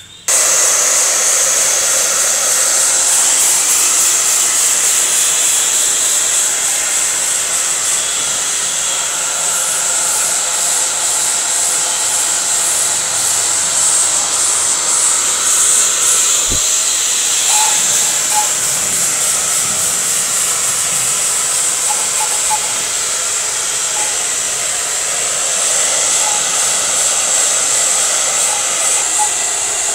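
Handheld hair dryer switching on abruptly and blowing at a steady level, a strong high-pitched hiss of air.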